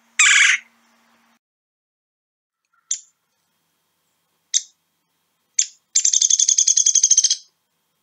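A red-bellied woodpecker gives one short rolling churr call at the start. Then a downy woodpecker gives three single sharp pik notes a second or so apart, followed by its rapid rattling whinny of many quick notes.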